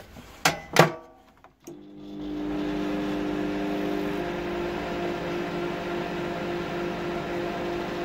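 Gorenje microwave oven being test-run with its casing off after a new high-voltage transformer was fitted: two knocks as the door is shut, a click about two seconds in as it starts, then a steady hum of the oven running.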